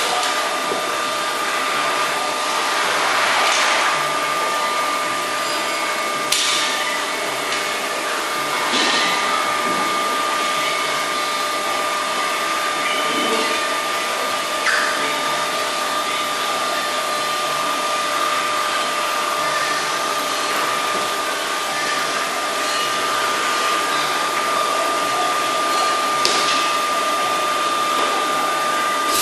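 Steady whirring of an electric motor or blower with a constant high whine, broken by a few faint clicks.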